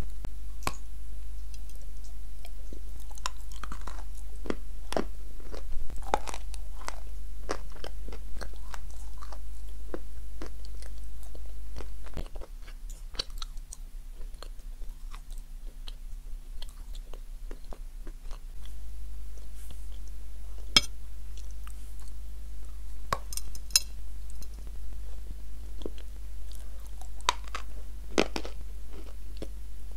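Close-miked biting and chewing of crunchy marshmallow: scattered crisp crunches and mouth sounds. A steady low hum sits underneath and drops away for several seconds in the middle.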